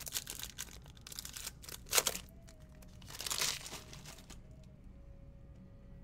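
Foil wrapper of a trading-card pack crinkling and tearing as hands open it, loudest about two seconds in and again around three and a half seconds, then settling to quieter rustling.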